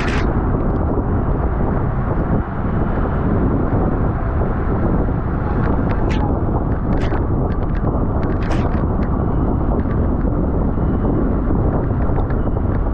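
Steady wind rushing over the microphone of a rider's camera on a bicycle at racing speed, with a few short sharp sounds in the middle.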